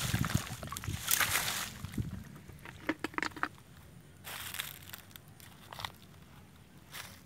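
Shallow muddy water sloshing and splashing as someone wades through it by hand and foot, loudest in the first second and a half, then in sparser, quieter bursts with a few short crackles.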